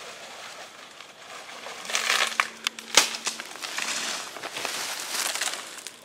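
Dry leaves and palm fronds crunching and crackling, starting about two seconds in, with a sharp snap about a second later.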